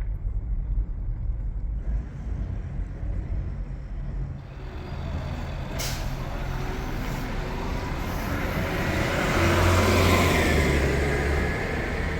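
Road traffic: a heavy vehicle approaching and passing over a low rumble, with a brief sharp hiss about six seconds in. The noise swells with a whine to its loudest about ten seconds in.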